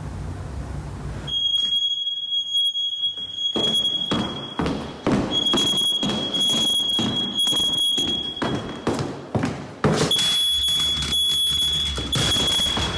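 Smoke alarm sounding a high, steady piercing tone, broken off twice for a moment, over repeated knocks and handling noise. About ten seconds in there is a sharp thud as the alarm is knocked down onto the wooden floor.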